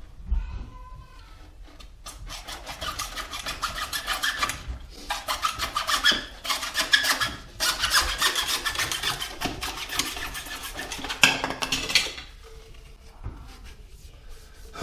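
Hand saw cutting through a 1.5-inch sump pump discharge pipe to shorten it, in quick back-and-forth strokes with two brief pauses. The sawing starts about two seconds in and stops a couple of seconds before the end.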